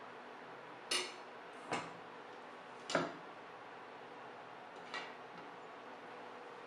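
A metal utensil clanking against a cooking pot four times, the strokes spread unevenly over a few seconds, over a steady faint hiss.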